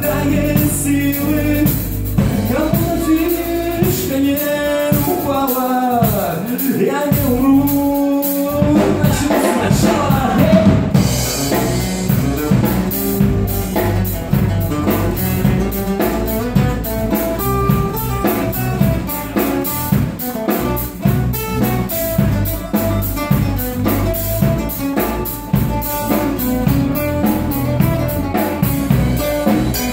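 Live rock band playing: drum kit, acoustic guitars and a singing voice. About eleven seconds in a cymbal crash comes, after which the drums keep a steady beat under the guitars.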